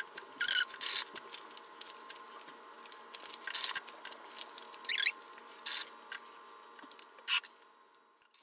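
Soapy water bubbling in short bursts as air is blown through a drinking straw into it, and foam bubbles crackling and popping as paper is pressed onto them.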